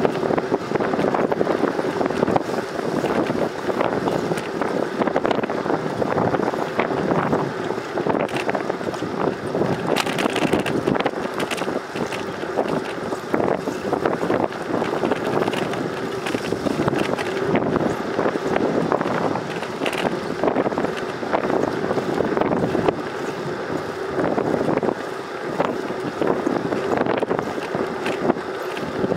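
Wind buffeting the microphone of a camera riding on a moving bicycle: a steady rushing noise, with frequent small knocks and rattles.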